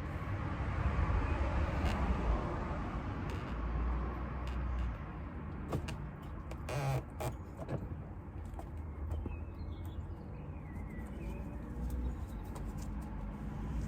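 Scattered clicks and knocks, and a short scraping rustle about seven seconds in, as the plastic front bumper cover of a Porsche 997 is worked loose and pulled off, over a low steady rumble.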